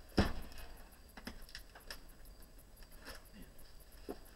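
A cardboard box being handled on a workbench: a single sharp knock just after the start, then scattered light taps and rustles.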